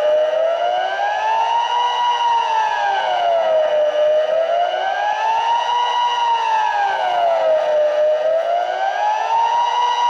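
Civil defense siren in Baar, Switzerland, sounding a continuous wail: its pitch rises and falls smoothly about once every four seconds. A steady up-and-down wail is the pattern of Switzerland's general alarm signal.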